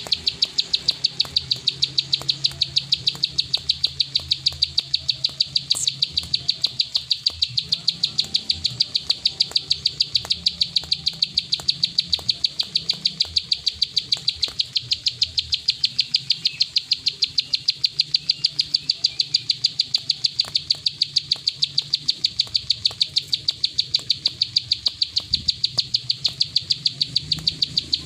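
Plain prinia (prenjak sawah) giving its rapid 'klik' call: sharp, evenly spaced ticking notes, about five a second, kept up without a break.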